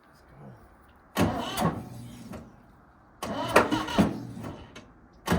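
Ford 3500 backhoe engine cranked by its starter in two short tries, about a second in and past the middle, each lasting a second or two with a regular stroke-by-stroke rhythm, and a third try starting at the very end. The engine, long out of use, is being turned over to get it to run.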